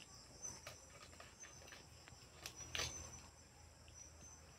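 Faint clicks and crackles of raw crab shell being pulled apart by hand, the loudest a short crackle about three seconds in, over a steady high chirring of night insects.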